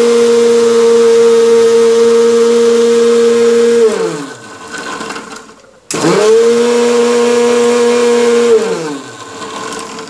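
Kenstar mixer grinder with a steel jar grinding coconut and cashews to a paste, its motor running with a steady whine. About four seconds in it is switched off and winds down in falling pitch. A click follows, then the motor spins back up, runs for about two and a half seconds, and winds down again near the end.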